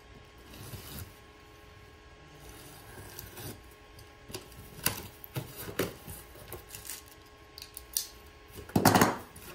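Box cutter slitting packing tape on a cardboard box, then the cardboard flaps being pulled open: scattered clicks, taps and rustles, with a louder burst of cardboard noise near the end.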